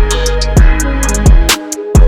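Background hip-hop music with a steady beat: deep gliding bass kicks and sharp hi-hats, briefly dropping out near the end.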